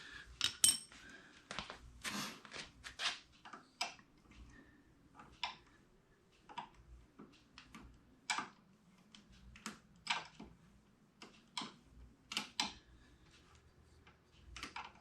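15 mm wrench working a mounting nut tight: a string of irregular sharp metal clicks and clinks as the wrench is fitted and swung on the nut.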